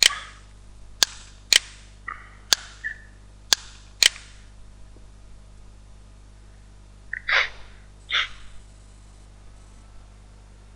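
About six sharp computer-mouse clicks in the first four seconds, some in pairs half a second apart. About three seconds later come two short breathy noises a second apart.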